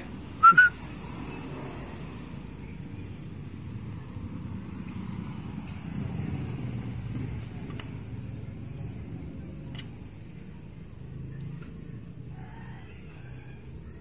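A person's short rising whistle about half a second in. It is followed by a steady low rumble of a passing vehicle, louder around the middle, with a single click about ten seconds in.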